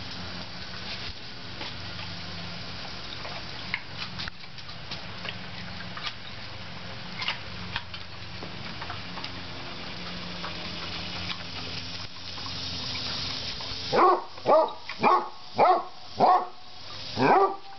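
Basset hound barking for a treat: a run of loud, short barks, about two a second, starting about three-quarters of the way in. Before that only faint background with scattered small clicks.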